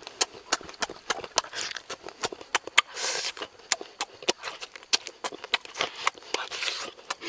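Close-up eating sounds of a person sucking and chewing chicken feet: a rapid, irregular run of wet lip smacks and chewing clicks, with a short sucking hiss about three seconds in and again near the end.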